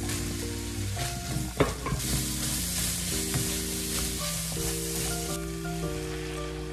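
Minced meat, broccoli and carrot sizzling in a nonstick frying pan while a spatula stirs and scrapes through them. There is one sharp knock about a second and a half in, as the vegetables go into the pan.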